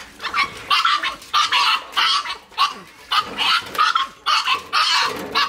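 Puppy squealing and crying over and over, about two shrill cries a second, while being washed.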